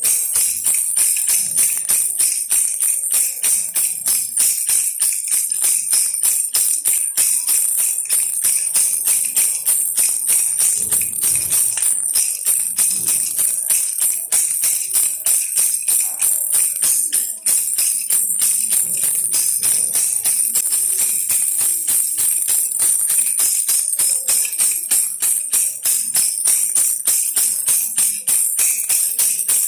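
Baby rattle shaken steadily, a high rattling at about three shakes a second.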